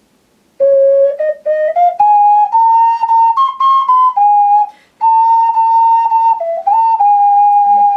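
A single ocarina playing a lively melody, the notes set apart by short breaks and climbing over the first second or so, with a brief pause a little past halfway.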